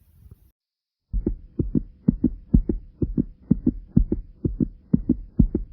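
Fast heartbeat: low double thumps (lub-dub) about twice a second, starting loudly about a second in after a brief silence, over a faint steady hum.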